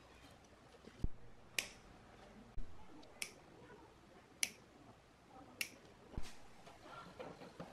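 Side cutters snipping cable-tie tails: four crisp snaps spaced about a second apart, with a few dull low knocks against the amplifier chassis or bench in between.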